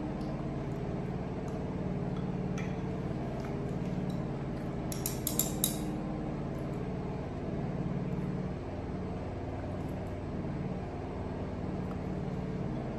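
Wooden chopsticks clicking against a ceramic bowl, with a few faint ticks and a quick cluster of sharp clicks about five seconds in. Underneath runs a steady low hum.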